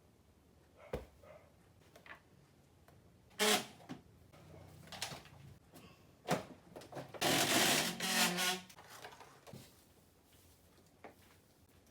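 Household handling sounds: scattered clicks and knocks, with a louder rushing clatter lasting about a second and a half, starting about seven seconds in.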